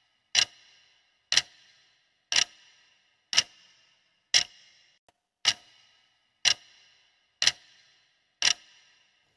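Clock-tick sound effect of a countdown timer: one sharp tick a second, nine in all, each with a short ringing trail.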